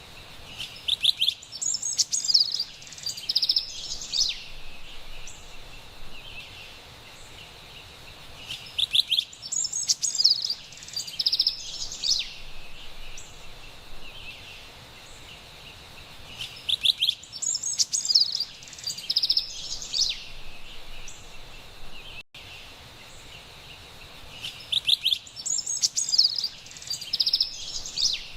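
Carolina wren singing: four bouts of bright, rapid, repeated song phrases, each about three seconds long and coming about every eight seconds, over a faint steady high background hiss.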